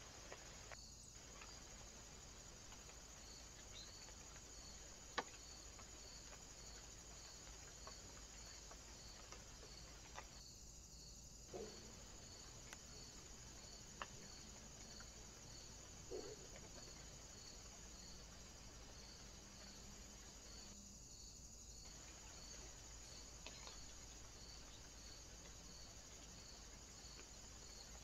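Near silence: faint steady hiss with a faint high chirp repeating evenly, a little more than once a second, and a few isolated sharp clicks, the loudest about five seconds in.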